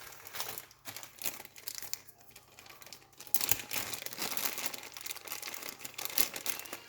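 Plastic packaging crinkling and rustling as it is handled, with many small clicks throughout, busier in the second half.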